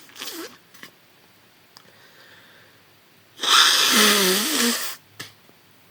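A heavily congested nose from a thick head cold: one loud, wet, rushing nasal blast lasting about a second and a half, starting about three and a half seconds in, with a short throaty voiced sound as it ends. A few brief, quieter snuffles come before and after it.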